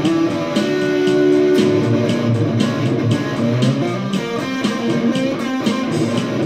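Electric guitar played through an amplifier: sustained notes and picked lines over a steady, even beat.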